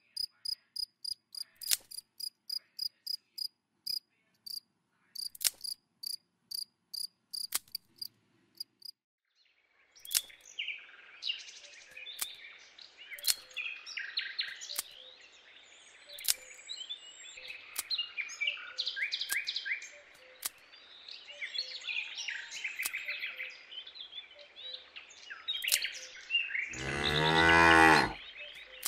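A cricket chirping in a regular series of short high chirps, then birds chirping, and near the end a cow mooing once, loudly.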